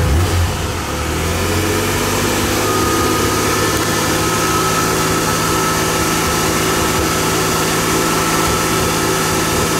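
DeLorean DMC-12's PRV V6 engine idling steadily just after being started, a little louder in the first second. A thin high whine comes in about two and a half seconds in and holds.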